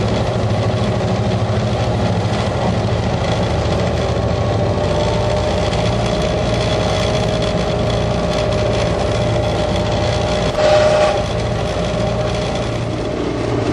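Diesel-electric locomotive heard from inside its cab while under way: a steady engine drone with a hum from the cab and the noise of the wheels on the rails. One brief louder clatter comes about eleven seconds in.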